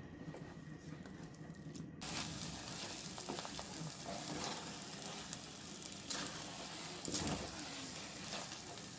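Semolina halwa sizzling in ghee in a pan as it is roasted, stirred and scraped with a wooden spatula. The sizzle starts suddenly about two seconds in, with a few louder scrapes later on.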